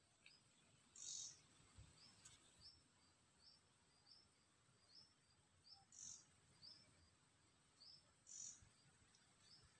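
Faint forest ambience: a bird repeats a short, high chirp about twice a second. Three brief, louder, high hissy bursts come about a second, six seconds and eight and a half seconds in.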